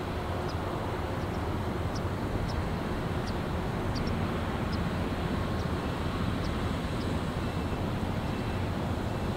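Steady low drone of the Ro-Ro passenger ferry OITA's engines as the ship manoeuvres in to berth, with a few faint high ticks over it.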